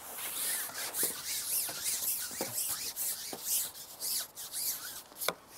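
Handling noise as a long carbon fishing pole is shipped back through the hands: rustling and scattered light clicks over a steady hiss.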